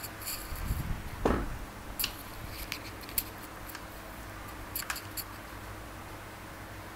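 2.5 mm knitting needles clicking lightly and yarn being handled while stitches are cast on, in scattered short clicks, with a dull thump about a second in.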